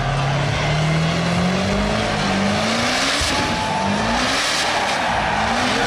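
Diesel pickup truck's built engine held at high revs during a burnout, its pitch climbing again and again in repeated rises, over the steady hiss and scrub of spinning rear tyres.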